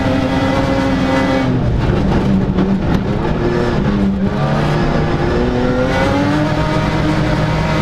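Rally car engine heard from inside the cockpit on a gravel stage. The revs drop about a second and a half in as the car shifts down from third to second, then climb steadily in second gear through the last few seconds, over the rush of tyres on gravel.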